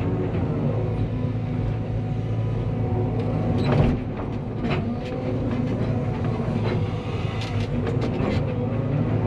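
Cat 320 excavator's diesel engine running steadily while the machine works, with scattered metallic clanks and knocks every second or two.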